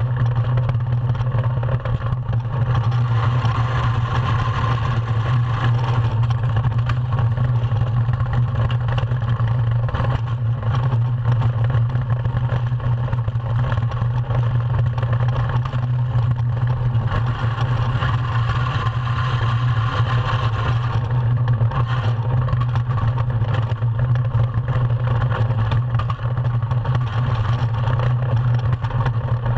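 Ice yacht sailing fast over ice: a steady rumble of its runners and hull on the ice, with rushing wind noise that swells and eases a little.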